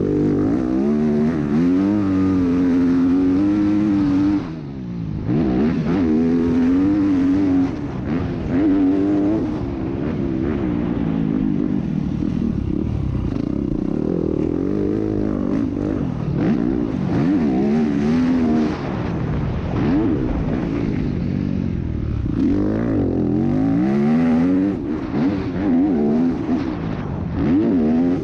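Yamaha YZ250F four-stroke single-cylinder motocross bike ridden hard, heard from the rider's helmet camera. The engine revs up and down continuously through the whole stretch, and its note falls away briefly about four and a half seconds in.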